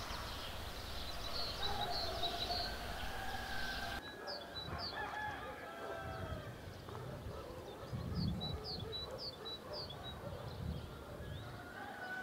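A rooster crowing, with small birds giving short high chirps again and again; about four seconds in, the background hiss drops away.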